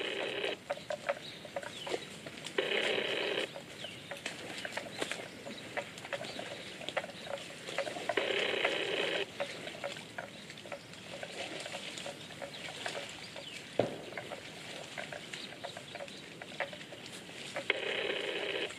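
Water buffalo grazing close by, tearing and chewing grass in many short crunching clicks. Four calls of about a second each from an unseen animal, and one sharp knock about three quarters of the way through.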